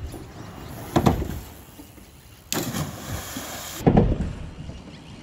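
Choppy lake water knocking against a camera at the waterline: two dull thuds about three seconds apart, the second louder, with a burst of rushing noise between them that starts and stops abruptly.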